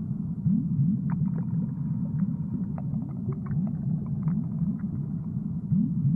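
Underwater ambience: a steady low rumble with short rising bubbling gurgles repeating every half second or so, and scattered light ticks.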